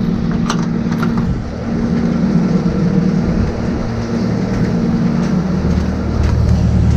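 A machine engine running steadily at a constant pitch, with a few light clicks about half a second and a second in, and a deeper low hum coming up near the end.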